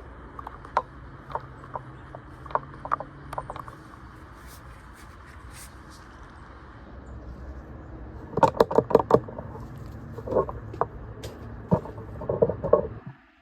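Metal hand tools clicking and knocking against car parts during a hose replacement: scattered single clicks, then a quick run of about eight sharp clicks a little past the middle, and a few more near the end.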